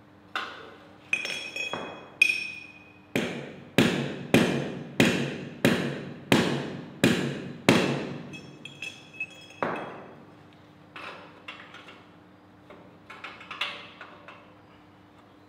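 Hammer striking steel scrap parts, ringing metallic blows: a few uneven hits, then about eight steady strikes roughly every two-thirds of a second, then lighter scattered taps and clinks.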